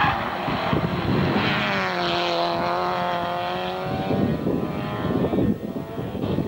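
Hillclimb racing car's engine running hard at high revs, its pitch falling and then holding steady as it goes by. Another burst of engine noise follows near the end.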